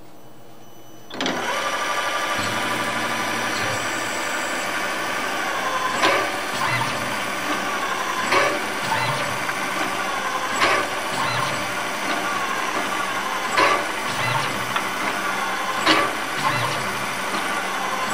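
Tormach PCNC 770 mill's spindle starts about a second in and runs steadily, driving an auto-reversing tapping head with a 1/4-20 form tap into one hole after another in an aluminium block. A sharp clack comes about every two and a half seconds, once per hole, while the running pitch wavers up and down between holes.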